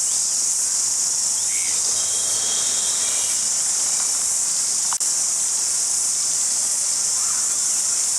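Crickets chirping in a steady, unbroken high-pitched chorus, with a brief click about five seconds in.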